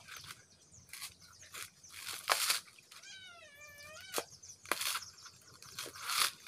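Bolo knife blade driven into a coconut's fibrous husk and levered to rip it away: a series of sharp tearing cracks, about six in all. About three seconds in, an animal call about a second long, wavering in pitch, rises over it.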